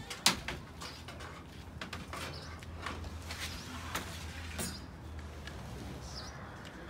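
Loaves and wooden bread trays knocking and clattering as bread is unloaded from a delivery truck's shelves, one sharp knock about a quarter second in the loudest, with a low steady hum underneath.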